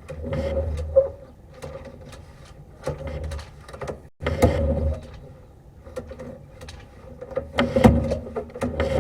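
Sewer inspection camera's push cable being fed into an ABS drain line in a few separate shoves, rubbing and clicking, over a faint steady hum.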